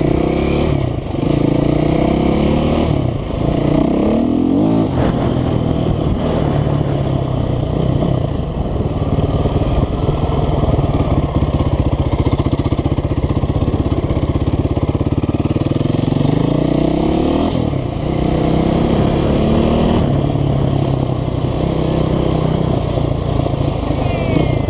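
KTM 530 EXC single-cylinder four-stroke enduro motorcycle with a CRD exhaust, ridden under hard acceleration. In the first few seconds the engine pitch climbs and drops back three times as it goes up through the gears. It then runs at a steadier speed, and climbs through the gears twice more about two-thirds of the way through.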